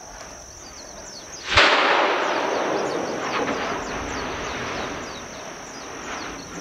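A volcanic explosion on Kīlauea: a sudden sharp blast about a second and a half in, followed by a loud rushing noise that slowly eases as an ash plume and rock debris are thrown up. A steady high-pitched insect drone runs underneath.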